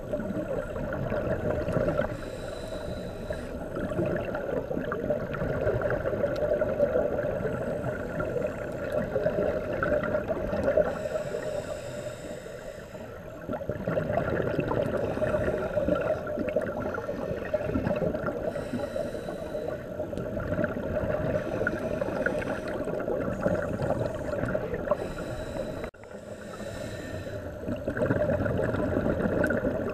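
Underwater ambience on a scuba dive: a steady engine-like hum with a rushing noise that swells and fades every few seconds.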